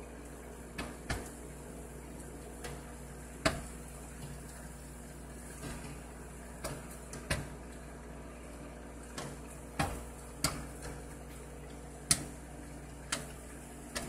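Popcorn popping inside a running microwave oven: sharp, irregularly spaced pops, about one a second, over the oven's steady hum.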